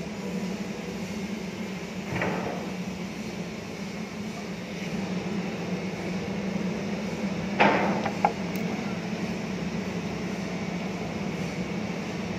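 Steady low machine hum, with a dull knock about two seconds in and a sharper, louder knock past the middle, followed quickly by a lighter second knock.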